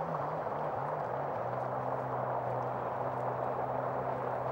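A low, steady motor hum, most likely a small boat's outboard engine, over a constant rush of wind and water. The hum's pitch wavers for about the first second, then holds steady.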